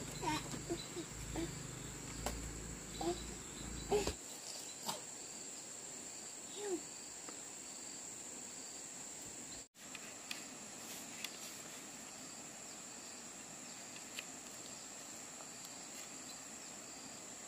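Steady high-pitched drone of an insect chorus, crickets or cicadas, throughout. In the first few seconds there are a few short chirping calls and some low rumble.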